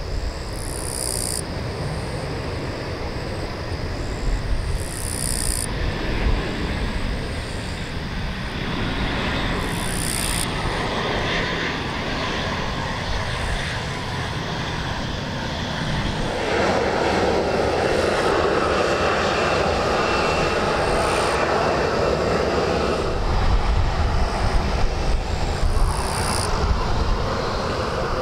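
Boeing 737-800's CFM56 turbofan engines running at taxi power as the jet taxis on the runway, a steady jet whine and rumble. The engine noise swells for several seconds about two-thirds of the way through, then eases.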